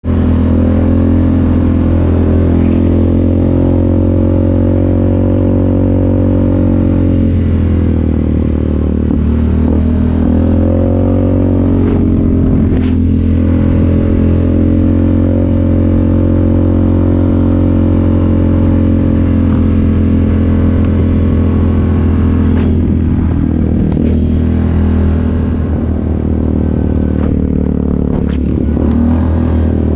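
Yamaha Grizzly 700's single-cylinder four-stroke engine with an aftermarket slip-on exhaust, running at a steady cruise under way. Its note eases down briefly twice. A few short clattering rattles come through from the machine bouncing over the trail.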